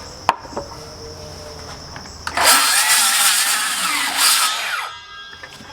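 A power tool runs loudly for about two and a half seconds, its pitch wavering up and down, then winds down.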